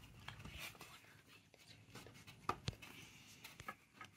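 Faint, scattered clicks and light taps of Calico Critters figures being handled and set against a plastic toy playset, with two sharper knocks a little past halfway.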